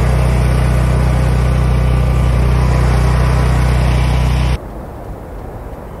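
Loud, steady blizzard noise on a phone recording, a rushing hiss over a steady low hum, cutting off sharply about four and a half seconds in. Quieter, duller road noise of a car driving through a whiteout follows.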